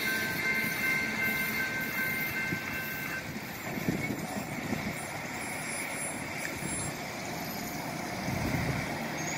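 Railroad grade crossing just after a freight train has cleared: a thin, high ringing stops about three seconds in, leaving traffic noise. Near the end a car drives up and over the tracks.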